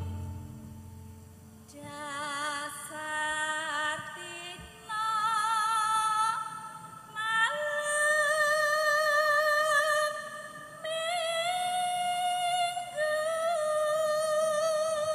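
Javanese sinden singing a slow melody in one line, each note held for a second or more with a wavering vibrato. The singing comes in after a quieter first second or two.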